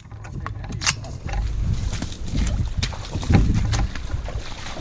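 Wind buffeting the microphone as a low, uneven rumble, with scattered short clicks and rustles throughout.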